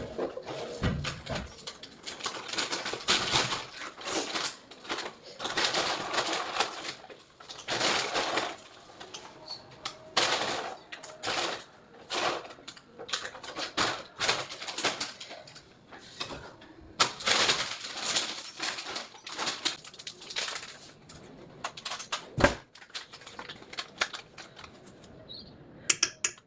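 Kitchen utensils scraping and clattering in irregular bursts, with sharp clicks among them, as food is prepared.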